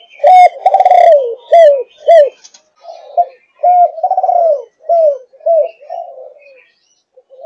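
Young spotted dove of the Malaysian 'thúc gù' line cooing: a quick string of short, arched coo notes. It is loudest in the first two seconds, then the coos come softer and more spaced, stopping shortly before the end.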